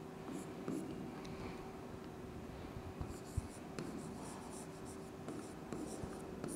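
Writing: a pen scratching in short strokes, with scattered light taps and a faint steady hum underneath.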